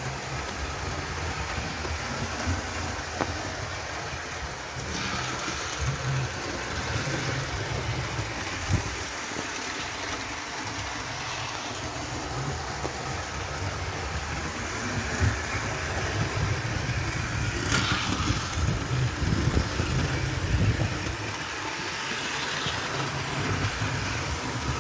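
Hornby model locomotive running on DC track with coaches in tow: its small electric motor and wheels on the rails give a steady rumbling whir that rises and falls. A couple of sharp clicks come through, the clearest about halfway through.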